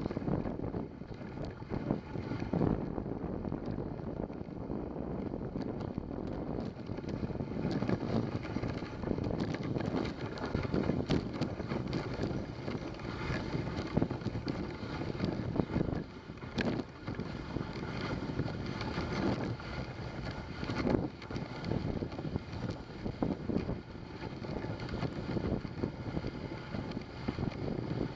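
Dog sled moving along a snowy trail: the runners scrape and hiss on the snow, with frequent knocks and rattles from the sled, and wind on the microphone.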